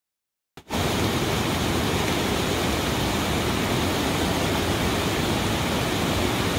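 Silence, then a little over half a second in a rocky creek's rushing water comes in suddenly and runs steadily.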